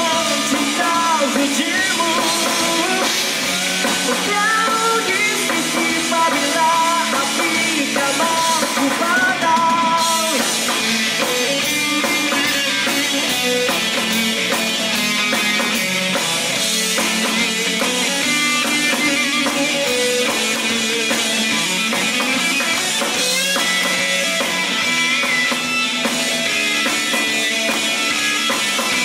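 Live rock band playing: electric guitars through Marshall amplifiers, bass and drum kit, with a male lead vocal. About ten seconds in, the singing gives way to an instrumental passage with brighter cymbals and the guitar leading.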